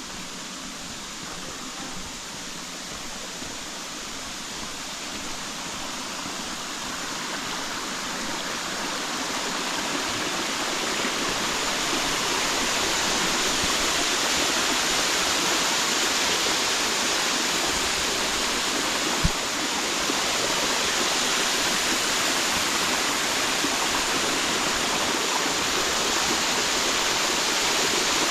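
Steady rush of flowing water, like a stream or small waterfall, growing louder over the first half and then holding steady. A single sharp tap is heard a little past the middle.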